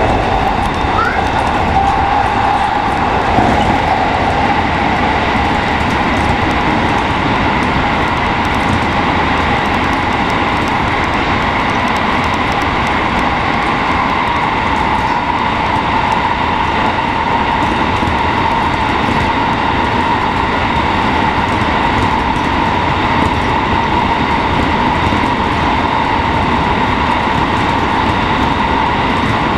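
JR West 207 series electric train running at steady speed through a tunnel, heard from inside the cab: a constant roar of wheels on rail with a steady high whine running through it.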